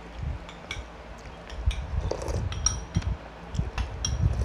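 Metal spoons clinking and scraping against ceramic bowls and plates while eating: many short, irregular taps with a light ring, over soft low thuds.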